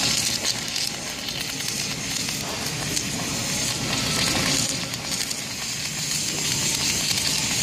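Gas welding torch flame hissing steadily with a crackle as it heats the red-hot edge of a steel plate.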